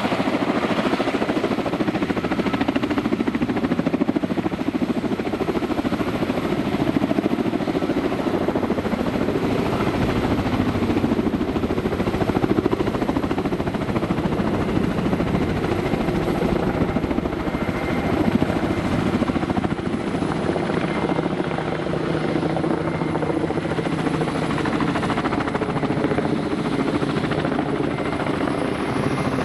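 Kamov Ka-32 coaxial-rotor helicopter running steadily: a rapid rotor chop with a faint steady whine over it.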